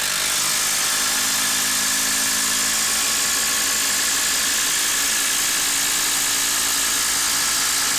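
Ryobi P239 brushless impact driver hammering steadily as it drives a long TimberLOK timber screw into a log.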